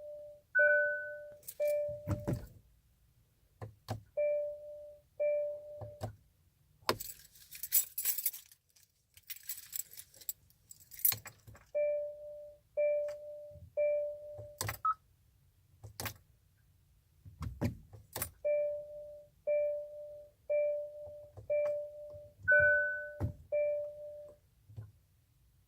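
A Hyundai's dashboard warning chime beeping in runs of short, evenly spaced mid-pitched tones about once a second, with an occasional higher beep. Keys jangle and sharp clicks and thumps come in between, and a rustling hiss comes about seven seconds in.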